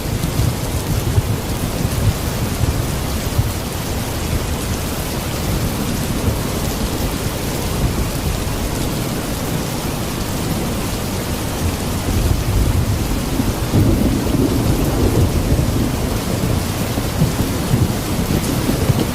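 Steady rainfall in a thunderstorm, with a continuous low rumble of thunder under it that swells louder about two-thirds of the way through.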